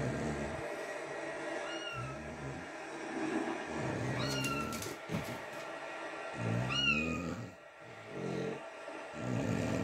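Cats meowing through a television's speakers: three high, arching meows about two and a half seconds apart, with lower, rougher sounds in between.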